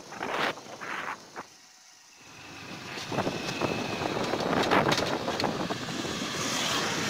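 Wind buffeting the microphone while a Hero Splendor Plus motorcycle is ridden, mixed with road and riding noise. It comes in uneven gusts: a few short surges at first, a lull at about two seconds, then louder, rougher buffeting through the rest.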